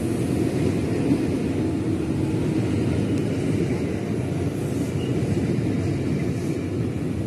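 KRL Commuter Line electric train running past close by, with a steady low rumble.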